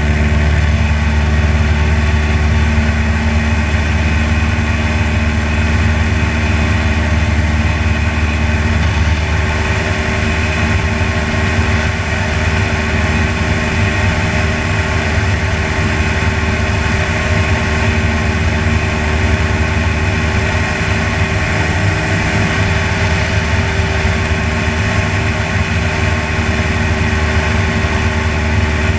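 A light aircraft's piston engine and propeller run steadily at cruise power, a constant loud hum with a stack of steady tones and little change in pitch.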